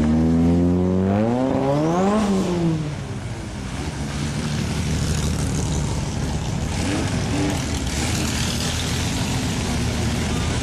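Engines of open-wheel single-seater race cars driving slowly past. One revs up and drops back about two seconds in, then the engines run steadily with a short blip around the middle.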